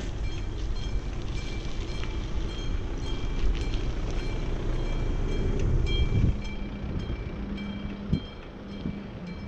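Riding a bicycle: low rumble of the tyres on the road, the bike rattling with light metallic pings over bumps. A steady low hum comes in about two-thirds of the way through.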